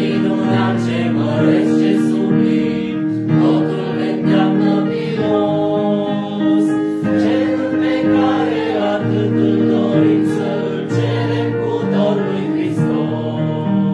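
A hymn sung by a group of voices, with sustained chords held under the melody.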